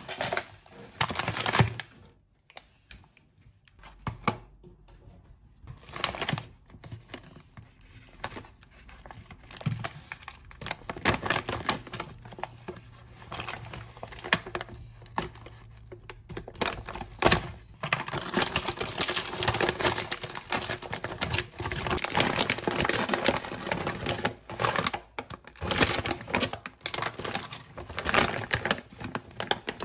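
Crinkly plastic prawn bag being handled and torn open, then frozen raw prawns clicking and clattering as they are tipped from the bag into a plastic tub. The sounds come as scattered rustles and clicks at first, then as a dense run of clicking through the second half.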